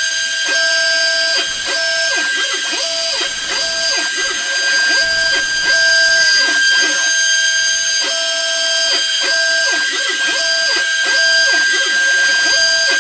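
DIY CNC router cutting plywood. The spindle gives a steady high whine, and the stepper motors sing in short tones that rise and fall in pitch as the axes start, move and stop, changing about once or twice a second.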